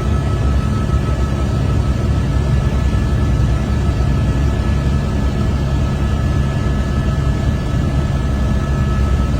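Helicopter in flight: steady engine and rotor noise with a faint, steady high whine.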